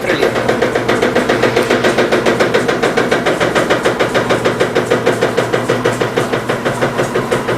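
Electrolux LT15F top-loading washing machine on the spin cycle with a heavy, unbalanced wet load, its tub knocking in a fast, even rhythm of about five a second over the motor hum. The knocking is the tub bouncing on its rear suspension rod, which rattles in its support in a way the owner takes for a worn support.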